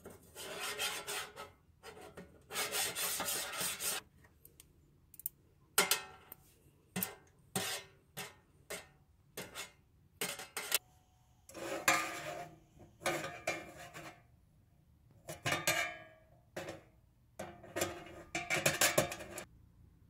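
Metal tongs scraping and clinking against a stainless steel tray and the silver pencil parts in it, in irregular bursts: a few strokes a second or two long, the rest short clinks.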